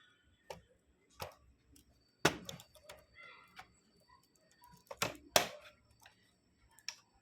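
Scattered sharp plastic clicks and taps as a small tool pushes in the keyboard retaining latches of a Dell Inspiron N4050 laptop to release the keyboard. The click-snaps are irregular, and the loudest come about two seconds in and twice about five seconds in.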